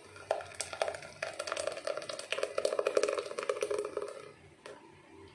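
Thick blended litchi juice glugging and splashing as it pours from a steel mixer jar into a mesh strainer, stopping about four seconds in. A single knock follows.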